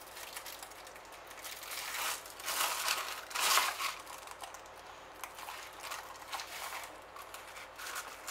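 Plastic backing sheet of a thawed puff pastry sheet crinkling and rustling as the pastry is peeled off it and folded over. The rustling is loudest from about two and a half to four seconds in.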